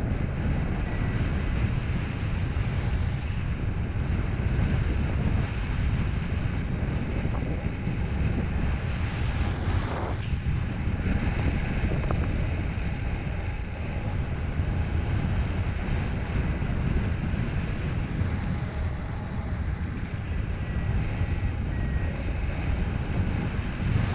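Airflow of a paraglider in flight rushing steadily over the microphone of a camera mounted on the glider's risers.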